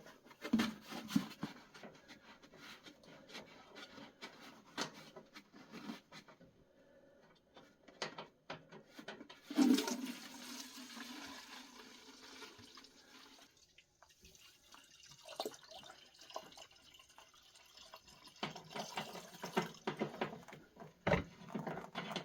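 Dirty solvent pouring out of a parts washer's drain into a tub, splashing and trickling, with small knocks and clatter; it gets louder about ten seconds in.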